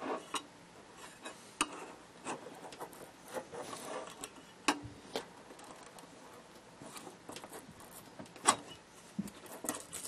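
A small flat-blade screwdriver prying and scraping the glued surround gasket off a speaker's metal basket rim: faint, irregular clicks and short scrapes, a few sharper ticks among them. The gasket is coming away easily from its low-strength glue.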